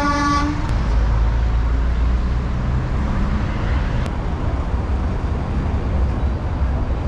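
Road traffic, with a steady low engine rumble from passing vehicles. A vehicle horn is sounding as it begins and cuts off about half a second in.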